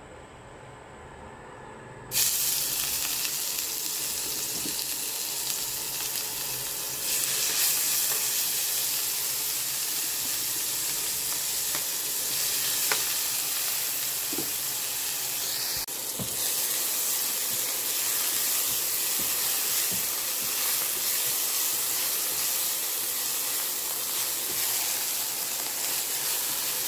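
Chopped chili, lemongrass, ginger, garlic and shallots dropped into hot oil in a nonstick frying pan about two seconds in, then sizzling steadily as they fry. Near the end a spatula stirs them.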